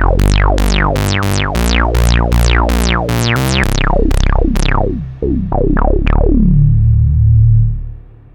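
Moog Sub 37 synthesizer playing its 'Retro Bass' patch with reverb. A run of short bass notes, about three a second, each bright at the start and quickly closing to a dull tone. The notes thin out after about four seconds and the last one fades near the end.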